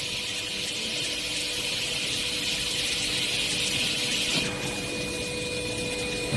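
A workshop machine runs with a steady high hiss over a faint steady hum. The hiss drops noticeably about four and a half seconds in.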